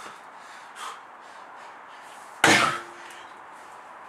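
A 34 kg sledgehammer striking a large rubber tyre once, about two and a half seconds in: a single sharp, heavy thud.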